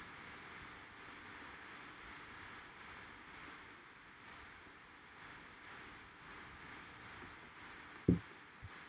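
Faint, light clicking at about four clicks a second, in two runs with a pause between, over a steady low room hiss. A short low thump comes near the end.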